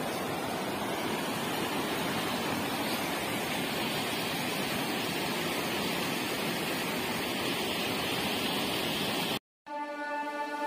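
Mountain river rushing over boulders and rapids: a steady whitewater rush that cuts off abruptly about nine seconds in. Plucked-string music, like a ukulele, starts just before the end.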